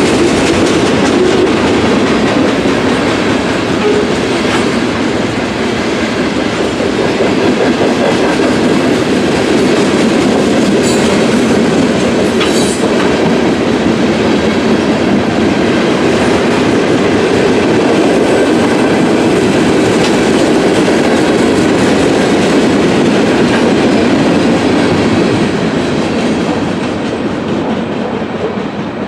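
Freight cars of a Kansas City Southern train rolling past, with steady rumble and wheels clacking over the rail joints. The sound fades near the end as the last car goes by.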